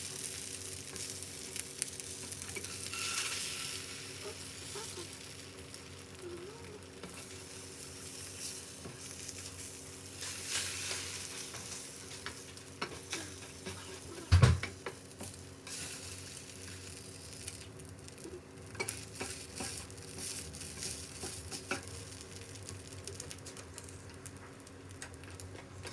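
Food sizzling and crackling as it fries in a pan, with small clicks of stirring, over a faint steady hum. There is one loud knock about halfway through.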